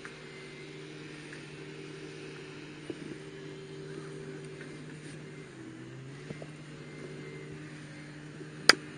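A steady engine hum that dips in pitch briefly about halfway through and then settles again. There are a few faint clicks, and one sharp crack just before the end is the loudest sound.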